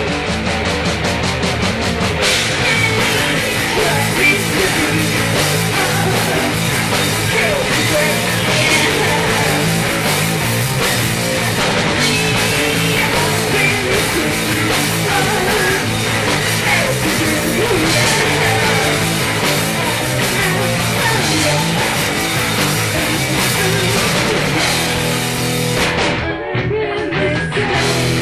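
Punk rock band playing loud: electric guitar, bass and drum kit, opening with fast even drum hits. Near the end the sound thins to steadier low notes.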